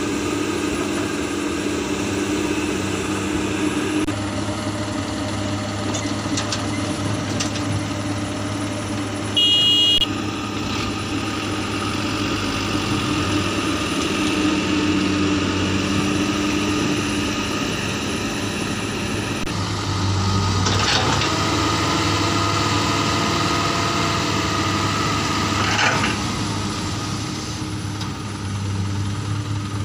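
Diesel engines of a Komatsu PC200 excavator and a Canter dump truck running steadily while loading soil, with a short loud high beep about ten seconds in and a few knocks in the second half.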